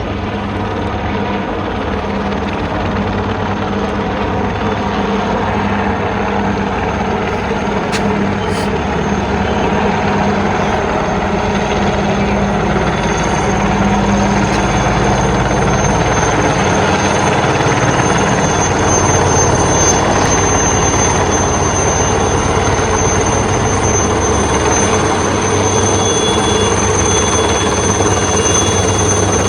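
Helicopter flying, its rotor and engine noise growing slowly louder over the first half and then holding steady, with a thin high whine strengthening from about the middle on.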